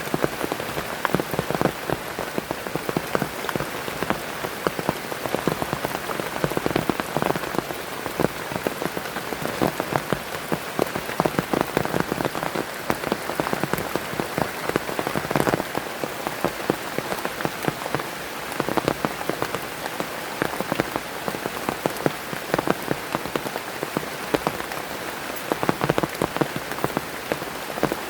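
Heavy rain falling steadily, with a dense patter of individual drops striking a surface close by.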